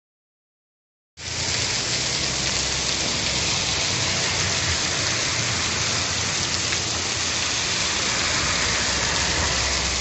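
Heavy rain falling steadily, an even dense hiss that starts abruptly about a second in.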